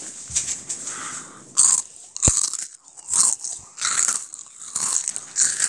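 A child chewing a crunchy puffed wheat snack (Jagalchi) with the mouth right at the microphone: a steady run of crisp crunches, about one every three-quarters of a second, with a sharp tap about two seconds in.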